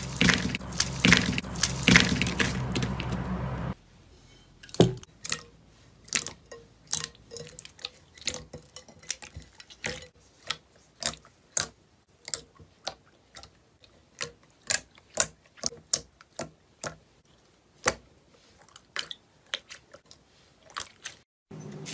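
Slime being squeezed and worked by hand, giving irregular sharp clicks and pops from trapped air, about two or three a second. The first few seconds are a louder, busier stretch over a steady hum, and then it cuts to sparser popping.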